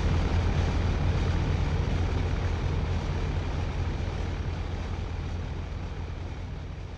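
Dense droning noise music with a steady low rumble underneath, fading out gradually.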